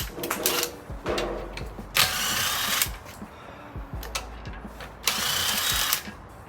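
Cordless power tool, likely the drill or impact gun, running in two short bursts of just under a second each, about three seconds apart, as the brake caliper guide pins are run in; a few clicks and knocks of tools come first.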